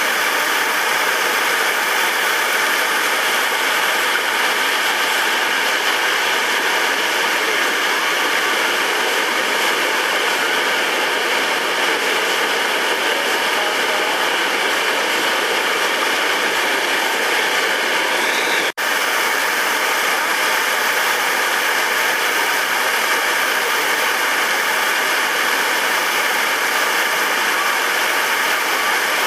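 Whitewater rapids of a swollen creek: a loud, steady rush of churning water pouring over rocks. The sound breaks off for an instant about two-thirds of the way through, at a cut.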